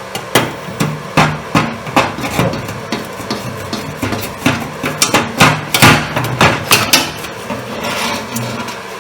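Manual arc welding with a UONI 13/55 stick electrode: repeated sharp taps and crackling as the electrode is struck against the steel plate to get the arc going, with short spells of arc crackle between the strikes. The arc does not hold, and the electrode ends up sticking to the plate.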